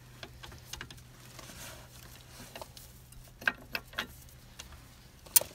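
A socket and breaker bar being fitted onto a caliper bracket bolt: scattered small metallic clicks and taps, then one sharp click near the end, over a faint steady hum.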